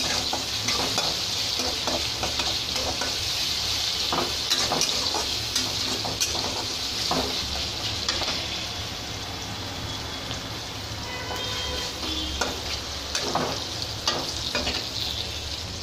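Chopped onions and green chillies sizzling as they fry in hot oil in a wide metal kadai, with a metal spatula scraping and clicking against the pan as they are stirred. The sizzle eases a little about halfway through.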